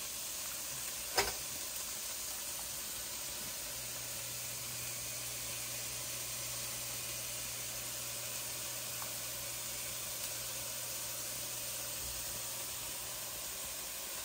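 Steady sizzle and hiss as hot stock and roasted vegetables are poured from a frying pan through a metal mesh strainer into a saucepan. There is a single metal clank about a second in, and a low steady hum runs from about four seconds in until near the end.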